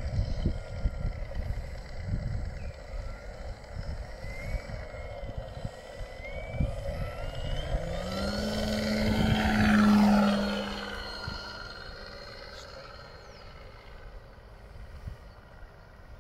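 Electric radio-controlled P-47 Thunderbolt model with a two-blade propeller taking off: the motor and propeller rise in pitch about eight seconds in, are loudest around ten seconds, then fade as the plane climbs away. Wind buffets the microphone during the first half.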